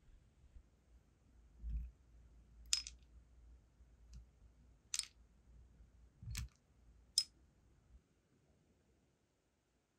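Four light, sharp clinks of metal tweezers picking flower-shaped sealing wax beads out of a cut-glass bowl, with a soft thump shortly before the first.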